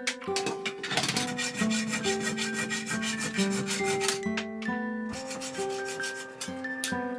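Fast, even rubbing strokes of hand abrasive work on a homemade knife, many strokes a second, thinning out after about five seconds. Background music with held plucked-string notes plays under them.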